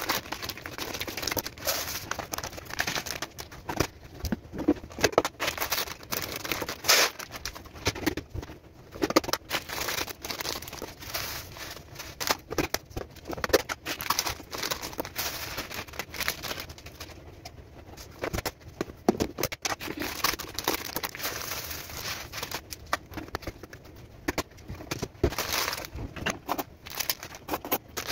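Dry pantry goods, red lentils and small pasta, rattling and pattering as they are poured into clear plastic storage containers. Packaging crinkles and plastic lids and containers click and knock, in irregular bursts.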